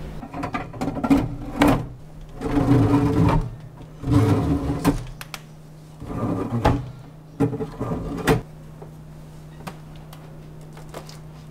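Pull-out sliding shelf rack under a kitchen sink slid in and out about three times, its runners rumbling, with sharp knocks and clatter from the cabinet and the stored items. After about eight seconds only a steady low hum remains.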